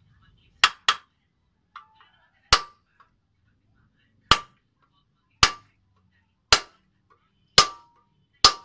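Steel hammer striking a punch on the rivets of a truck drum-brake shoe during a brake-lining change: eight sharp metallic blows, two in quick succession near the start and then about one a second, each with a short ring.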